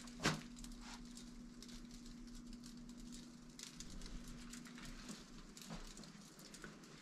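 Quiet room tone: a faint steady hum that stops about five seconds in, with a soft sharp sound at the start and scattered faint ticks and taps.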